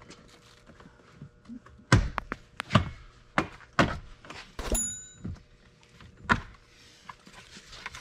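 A series of knocks and thunks as rubber weather stripping is pulled loose from a truck's door opening, with one short metallic ring about halfway through.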